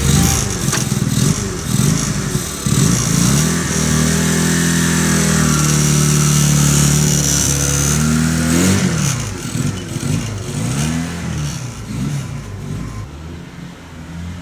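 Honda Rebel 250 (CMX250C) twin-cylinder engine being revved: several quick throttle blips, then held at high revs for about four seconds before the revs drop about eight and a half seconds in. After that the engine runs lower and unevenly, growing quieter toward the end.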